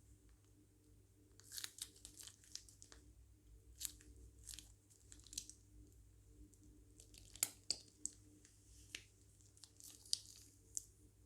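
Slime being handled in a plastic piping bag: scattered, irregular crinkles and sticky crackling pops, the sharpest a little past the middle.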